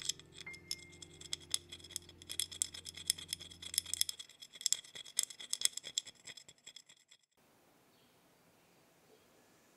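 A black muddler rubbed quickly back and forth on a small metal grater, a fast run of rasping scrapes grating it down into fine black crumbs. It stops suddenly about seven seconds in, leaving faint room tone.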